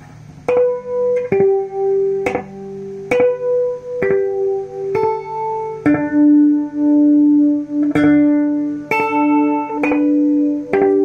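Guitar playing single plucked notes, about one a second, through a Toa EMX-10 echo mixer. Each note rings on with a pulsing echo, and one note is held longer in the middle.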